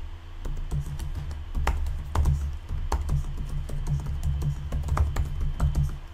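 Computer keyboard typing: a quick, irregular run of key clicks, several a second, as a sentence is typed, over a low hum.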